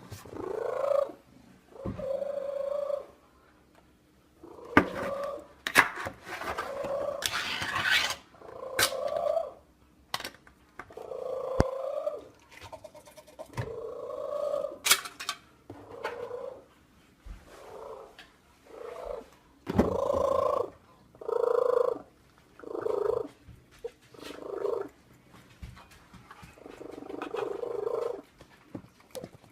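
A domestic cat making a long series of drawn-out yowling calls, one after another with short pauses, with a few sharp clicks in between.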